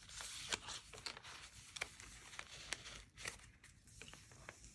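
Faint rustling of paper and card as journal pages and a folded old letter are handled and a page is turned, with several short sharp ticks of paper edges and fingers against the pages.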